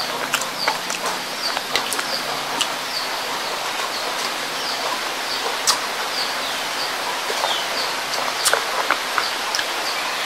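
Steady hiss of rain, with short high chirps repeating every half second or so and scattered light clicks.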